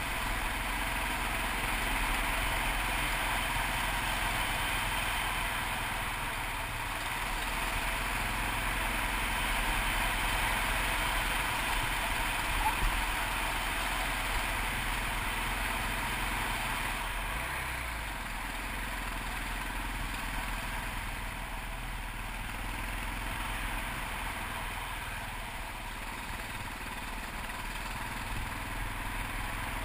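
Yamaha TT600RE single-cylinder four-stroke engine running while the motorcycle rides along a gravel track, with a steady rushing noise over it; it eases off a little in the second half.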